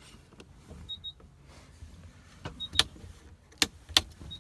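Sharp clicks and knocks in a truck cab, from switches and fittings being worked while searching for the cab light; three loud clicks come in the last second and a half. Under them a faint, short, high double beep repeats about every second and a half to two seconds.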